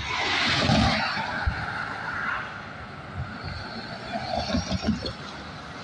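A road vehicle passing by: tyre and engine noise swells up at the start and fades over the next two seconds or so, leaving a steady background hiss with a few light knocks.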